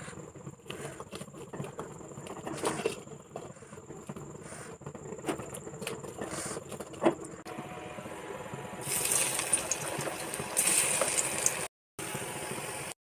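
Light clinks and scrapes of steel utensils on a steel plate as part-fried dal bada fritters are handled. From about seven seconds in, hot oil sizzles steadily, with two louder stretches of hissing as the shaped fritters go back into the kadhai for their second fry.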